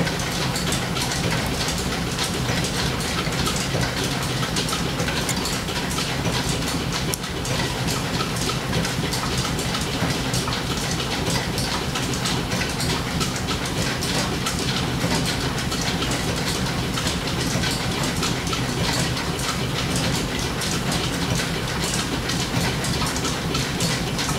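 Overhead line shaft and flat leather belts of a steam-powered machine shop running steadily: a continuous dense mechanical clatter over a low hum.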